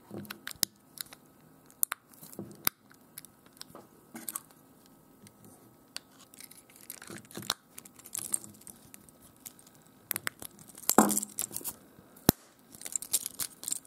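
Close-up handling of a plastic car key fob: scattered small clicks and rustles of fingers on the casing as a coin cell battery is pressed into its holder and the cover closed, ending in a sharp click near the end as the casing is pressed shut.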